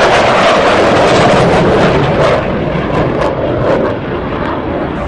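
A fighter jet's engine noise after a high-speed pass: a loud, dense rushing roar with a few sharp crackles in the middle, easing off after about four seconds as the jet flies away.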